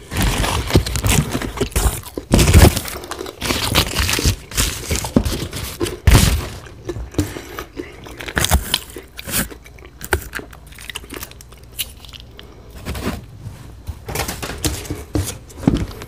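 Close-miked handling of a fast-food burger and its paper wrapping: irregular crinkling, rustling and small knocks, busiest in the first few seconds.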